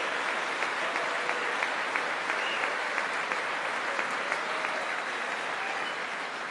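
Large audience applauding steadily in a big chamber; the applause slowly fades near the end.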